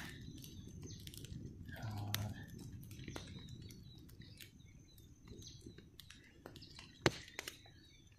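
Quiet forest ambience: a few faint bird chirps over a low steady rumble, with scattered soft clicks and one sharper click about seven seconds in.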